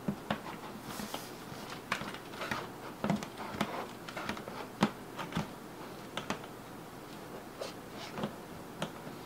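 Irregular light knocks and clicks as a magnetic leather wrist rest is pressed and repositioned against a keyboard's edge, its magnets hardly catching. The loudest knock comes about five seconds in.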